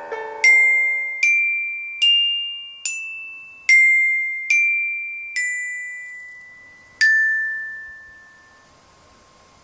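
Bright, bell-like glockenspiel-style notes from an online virtual instrument, played one at a time as a slow melody: seven notes about a second apart, a short pause, then a last, lower note that rings out and fades.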